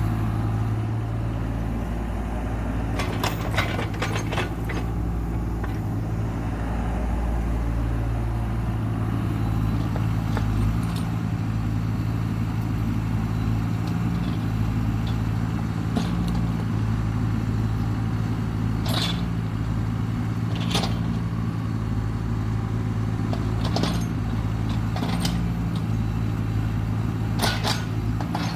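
Heavy land-clearing machine's engine running steadily with a low drone, with occasional short sharp clanks or knocks from the machine working, a cluster about three to four seconds in and more spread through the rest.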